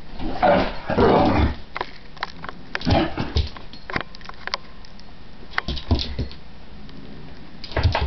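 Pit bull vocalizing in short bursts, loudest about half a second and one second in and again around three seconds, followed by a few knocks and low thumps near the end.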